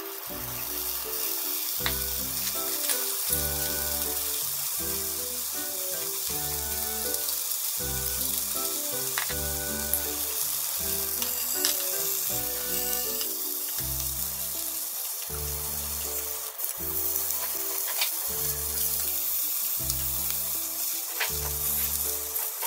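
Bacon-wrapped tomato rolls sizzling steadily as they fry in a frying pan, with a few sharp clicks, over background music with a steady beat.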